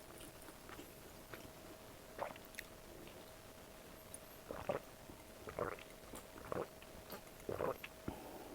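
A person chewing food close to the microphone, with wet chewing strokes about once a second that grow stronger after the first few seconds, over a faint steady hum.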